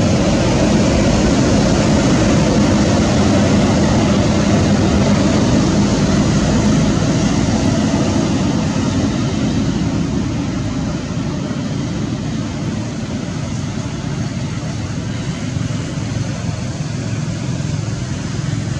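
Steady motor-vehicle engine and traffic noise, a continuous rumble with a low hum in it, easing off slightly about halfway through.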